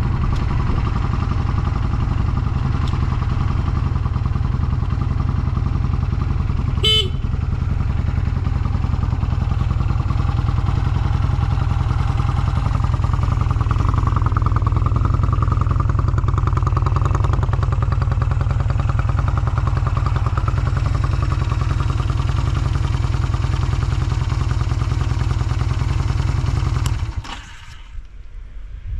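Honda Rebel 250 (MC13) air-cooled parallel-twin engine idling steadily, with no abnormal noise, and one brief sharp click about seven seconds in. The engine stops suddenly near the end.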